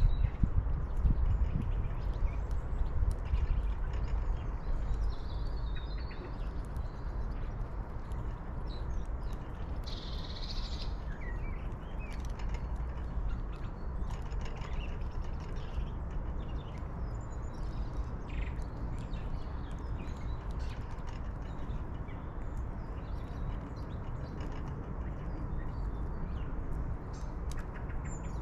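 Outdoor ambience: scattered short bird chirps and calls over a steady low rumble, with a brief rustling noise about ten seconds in.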